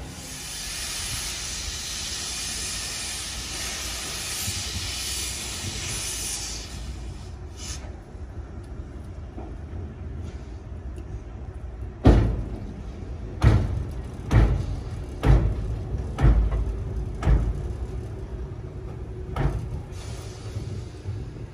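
Steam locomotive 99 7237-3, a Harz narrow-gauge 2-10-2 tank engine: a steady steam hiss for the first seven seconds or so. Then, from about halfway through, about seven heavy, slow exhaust chuffs come roughly a second apart as the engine works at low speed.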